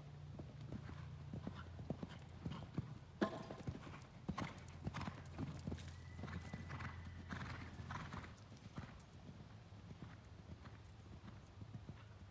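A horse's hoofbeats at a canter on sand arena footing, a run of dull strikes that are loudest in the middle stretch as the horse jumps a fence close by, with one sharp thud about three seconds in.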